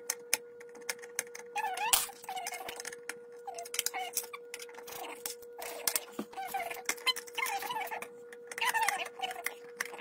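Rapid clicks and scrapes of a screwdriver backing screws out of a humidifier's plastic base, with a thin steady tone underneath.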